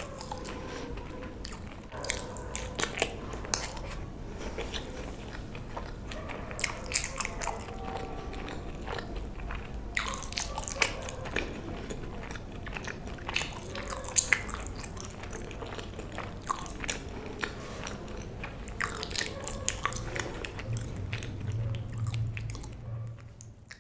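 Close-miked eating: a person biting and chewing food, with frequent short sharp mouth clicks and smacks. A low hum comes in near the end, and the sound fades out at the very end.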